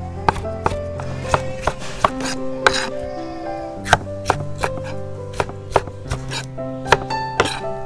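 Knife chopping on a cutting board, sharp strokes about two to three a second with a short pause midway, over background music.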